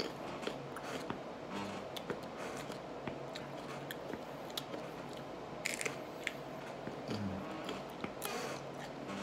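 A person chewing a whole red chile pepper with the mouth closed: soft, wet crunching and small mouth clicks, with a couple of short louder hissing bursts along the way.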